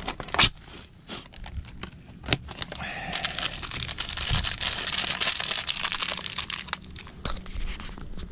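Plastic packet of breadcrumbs being torn open and handled: crinkling plastic with sharp snaps about half a second and two seconds in, then a few seconds of continuous crinkling.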